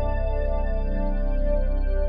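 Slow ambient background music with held, slowly shifting synthesizer chords.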